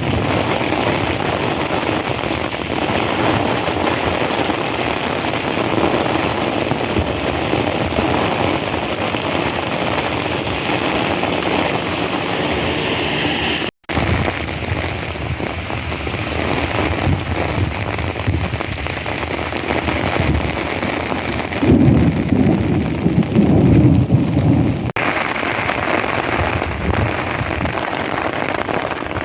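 Heavy monsoon downpour: a steady hiss of rain, broken by a very short drop-out just before halfway. A louder, deeper stretch lasts about three seconds two-thirds of the way through.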